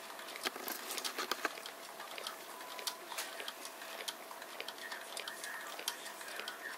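Homemade soda-can Stirling engine running on candle heat, its bent-wire crank and connecting linkage clicking and ticking irregularly as the CD flywheel turns.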